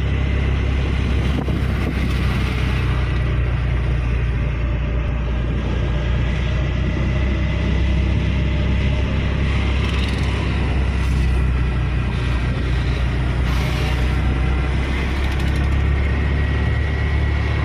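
Mahindra Maxximo mini truck's two-cylinder diesel engine and road noise heard from inside the cab while driving: a steady low rumble with a faint steady whine above it.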